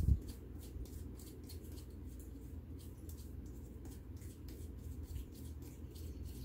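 Faint, quick scratchy ticks, several a second, from hands handling small parts, over a low steady hum.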